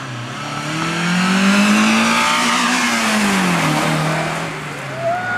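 Mazda MX-5 rally car's four-cylinder engine revving hard as the car drives past. The engine note climbs and gets louder, then drops sharply about three and a half seconds in and carries on at a lower, steady pitch.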